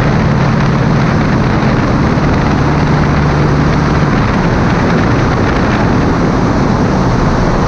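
Thurston Teal amphibian's 150 hp O-320 engine and propeller running at low power, heard from outside the aircraft, over a loud steady rush of wind and water as the boat hull runs on glassy water just after touchdown. The low engine note eases off about four seconds in.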